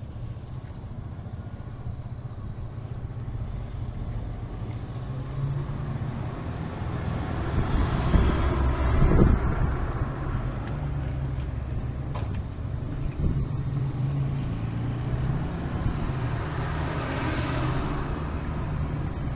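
Street traffic: a steady low engine rumble, with a vehicle passing louder about eight to nine seconds in and another swell near the end.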